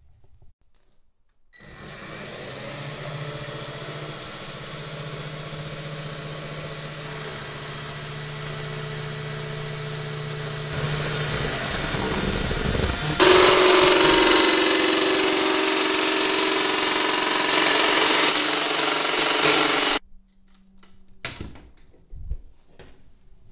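Electric drill running steadily as it bores a pipe hole through a PVC wall panel. It gets louder in two steps, about 11 and 13 seconds in, and cuts off suddenly near the end, followed by a few light clicks.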